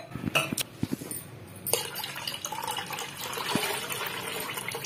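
Water poured in a stream into a steel bowl of curd, thinning it into buttermilk: a steady splashing that starts a little under two seconds in, after a few light clicks of the vessels being handled.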